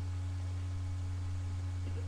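A steady low hum with a faint hiss behind it, unbroken and without any other event.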